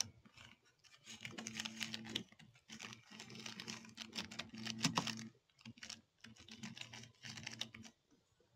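Computer keyboard being typed on, keystrokes clicking in quick runs with short pauses between, over a faint low hum.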